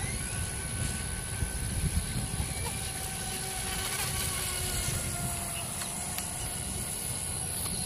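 Brushless electric motor of an Atomik Barbwire XL RC race boat whining as the boat runs at speed out on the water, its pitch drifting slightly. The whine sits over a low rumble of wind on the microphone.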